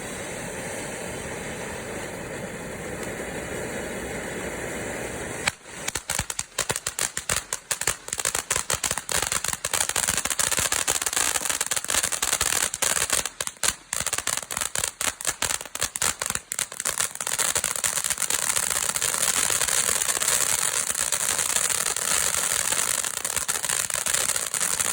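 A steady hiss for about five seconds, then a consumer firework going off in a long, dense run of rapid crackling pops that keeps going for nearly twenty seconds.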